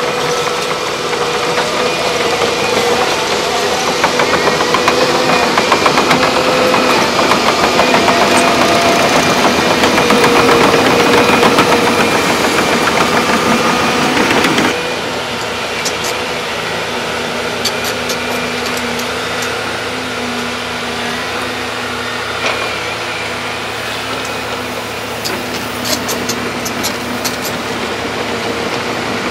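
Volvo excavators' diesel engines running at a work site, louder and busier in the first half, then dropping abruptly about halfway through to a lower, steadier running with a few faint clicks near the end.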